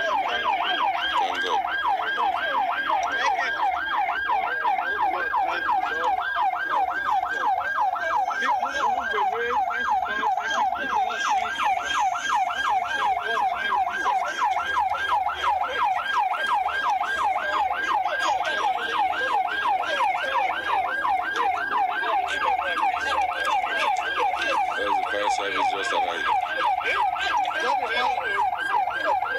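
Emergency vehicle siren sounding continuously in a fast yelp, its pitch rising and falling a few times a second.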